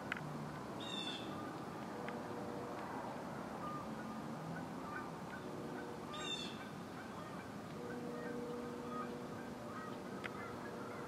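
Birds calling in the open: a short, high call heard twice, about five seconds apart, over fainter scattered calls.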